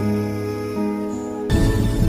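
Background music: soft sustained notes changing every half second or so, then an abrupt cut about one and a half seconds in to a louder, denser, tense passage.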